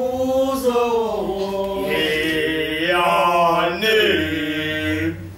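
Isicathamiya (cothoza) group of men singing a cappella in close harmony, with long held notes that slide slowly in pitch.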